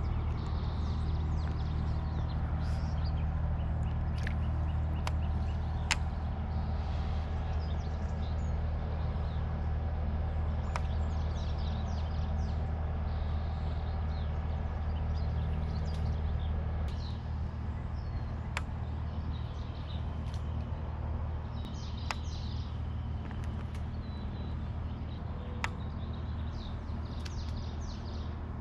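A steady low mechanical hum, which drops in level about two-thirds of the way through, with birds chirping over it and a few sharp clicks.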